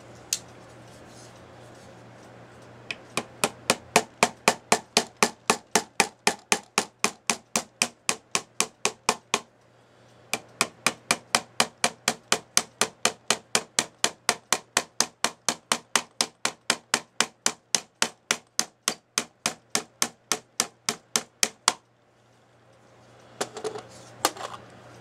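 A small metal tool tapping steadily on a wooden cuckoo clock case, about three sharp strikes a second, with a short pause partway through; the tapping stops about 22 seconds in and a few looser knocks follow near the end.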